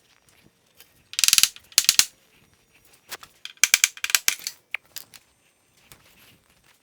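Short bursts of rapid mechanical clicking, like a ratchet: two about a second in, a longer run from about three seconds in, then a few lone clicks.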